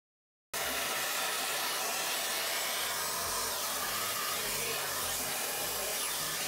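A steady, even hiss that starts abruptly about half a second in.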